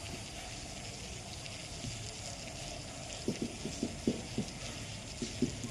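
Steady hiss of background noise. In the second half comes a quick, irregular run of soft, low taps or knocks, about a dozen in all.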